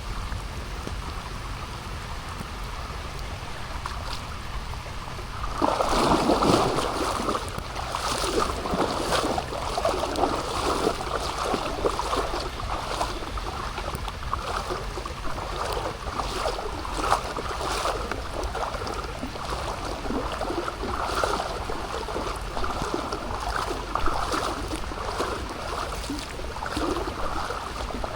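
Water rushing and splashing, setting in suddenly about six seconds in and then running on steadily, over a low rumble.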